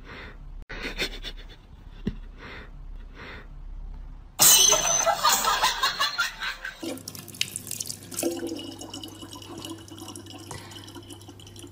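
A cat makes short breathy sounds, then hisses loudly for about two seconds, mouth open, at a foot pushed in its face. After a cut, a thin stream of water runs steadily from a tap into a plastic water bottle, over a steady hum.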